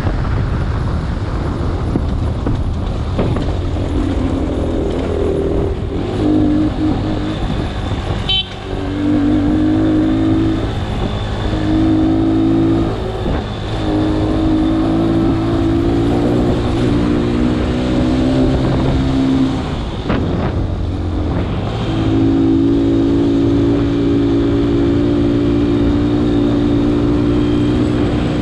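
Vehicle engine running under load on a rough dirt road, its pitch stepping up and down and easing off briefly several times before picking up again.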